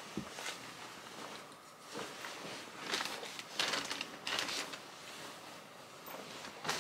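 Rustling swishes of a varsity jacket's fabric as it is pulled off the shoulders and arms, coming in several separate bursts, with a brief soft thump just after the start.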